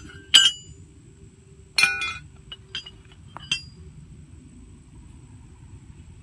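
Pieces of old steel clinking and clanking against each other as they are handled, with ringing metallic strikes: a sharp one about half a second in, a louder cluster around two seconds, then a few lighter clinks.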